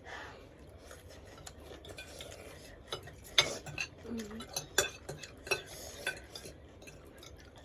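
Spoons clinking and scraping against bowls while instant noodles are eaten, in scattered light clicks.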